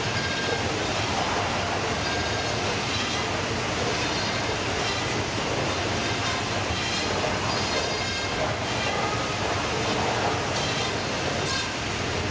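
Baader fish-processing machine and its conveyor running, a steady dense mechanical clatter with a few sharp clicks as fish are fed through.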